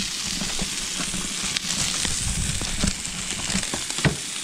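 Rainbow trout fillets frying in a pan on a camp stove: a steady sizzle with scattered crackles and pops, and one sharper crack near the end.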